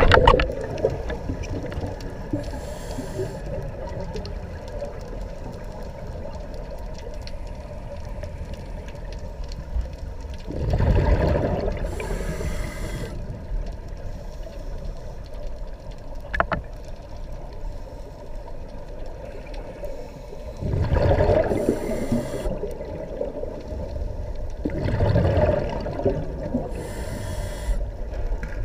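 Scuba regulator breathing underwater: three loud rushes of exhaled bubbles, the first about eleven seconds in and the others near 21 and 25 seconds, with four short hissing inhalations through the regulator, over a steady low underwater rumble.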